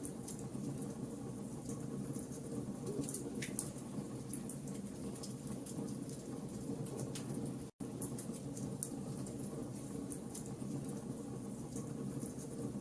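Wood fire crackling in a fireplace: a steady low rush with scattered sharp crackles and pops. The sound cuts out for an instant a little past halfway.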